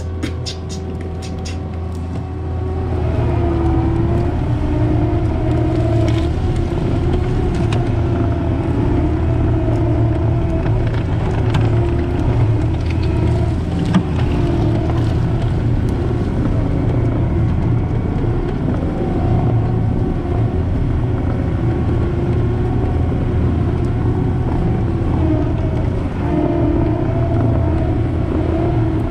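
Diesel engine of a Cat tracked loader running hard under load, with a wavering whine over its low drone, as the machine drags logs. A quick run of sharp ticks in the first two seconds sounds like a sprinkler, and the engine picks up about three seconds in.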